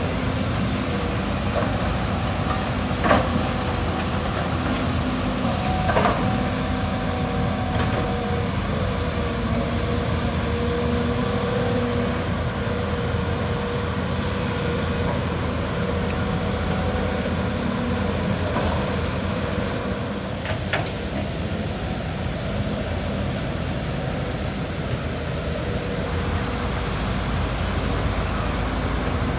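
Hydraulic excavator's diesel engine running steadily under load with a held hydraulic whine as it digs and loads soil into a dump truck, with a few sharp metal clanks along the way.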